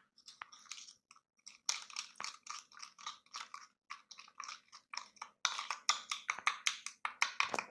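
Metal spoon beating instant coffee, sugar and a little hot water in a bowl: quick, wet, sticky strokes and scrapes, sparse at first, then faster and louder from about five seconds in.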